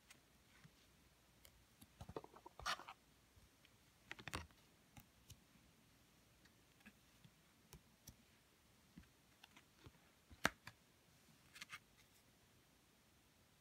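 Tarot cards being flipped and slid over one another: faint, scattered clicks and short snaps of card stock, loudest about two to four seconds in and once near the ten-second mark.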